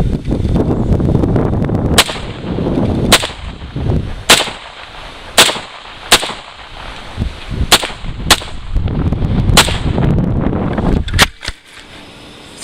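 A string of about nine single gunshots, spaced roughly a second apart at an uneven pace. Wind rumbles on the microphone between the shots.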